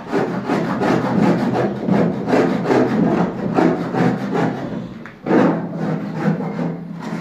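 Rapid, rough rasping strokes in quick succession, with a short pause about five seconds in.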